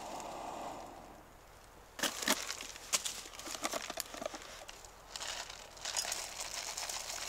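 Plastic packaging crinkling as it is handled: a soft hiss in the first second, then a run of irregular sharp crackles from about two seconds in.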